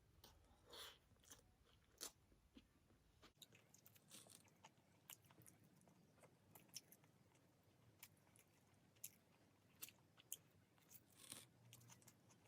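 Faint chewing and crunching of food close to the microphone, with irregular small mouth clicks.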